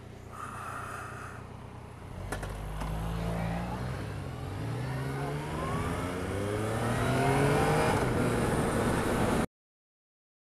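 Yamaha MT-09's three-cylinder engine idling, then pulling away and accelerating, its pitch rising through several gear changes. It cuts off suddenly about a second before the end.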